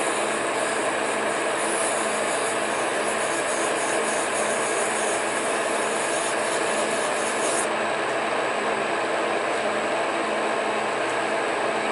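A Monarch metal lathe running steadily, with a steady rubbing hiss from filing, sanding or cutting on the spinning workpiece. The hiss stops suddenly about eight seconds in while the lathe keeps running.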